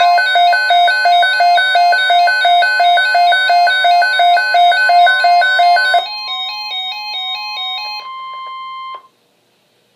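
Electronic chime-like alert melody: a quick two-note pattern repeating over a ringing chord, changing after about six seconds to a different pattern under a steady high tone, which cuts off suddenly about nine seconds in.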